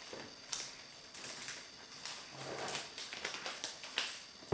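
Tear-off seal strip being peeled from an iPhone 12 Pro box, giving a run of small crackling clicks and ticks with a sharper snap near the end.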